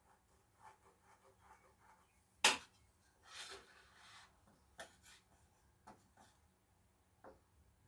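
Scattered small clicks and knocks of objects being handled, with one sharp click about two and a half seconds in followed by a short rustle, then a few fainter clicks.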